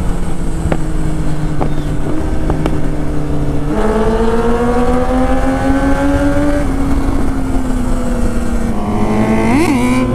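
Sport motorcycle engines on the move, with a few sharp exhaust crackles in the first few seconds from a bike with an aftermarket exhaust. About four seconds in, an engine's note steps up and climbs steadily as it accelerates, and the pitch changes again near the end.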